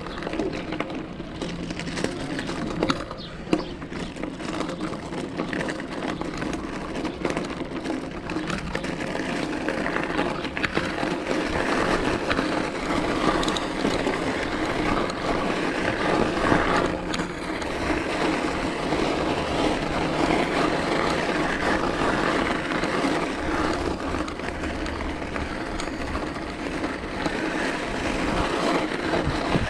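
Bicycle being ridden, heard from a camera on the rider's chest: steady rolling noise with frequent small clicks and rattles, getting somewhat louder after about ten seconds.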